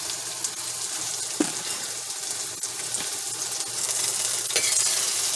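Sliced fennel and celery sautéing in a frying pan, a steady sizzle as the vegetables soften, with a few light clicks.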